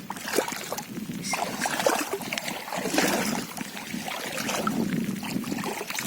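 Water splashing and sloshing in irregular bursts, with scattered small knocks and clicks.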